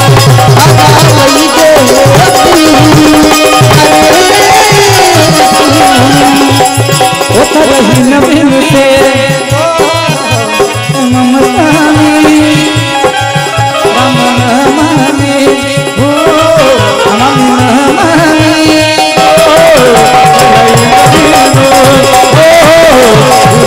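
Live Indian devotional music for a Ramayan chaupai: a dholak keeps a steady hand-drum rhythm under a melody on harmonium and keyed banjo, set to a Hindi film tune.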